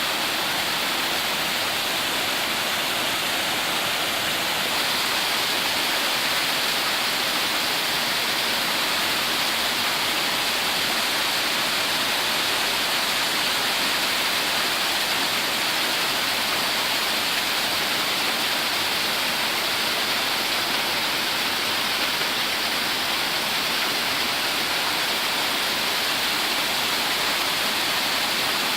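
Hebron Colony Falls, a waterfall, rushing steadily, a constant hiss of falling water.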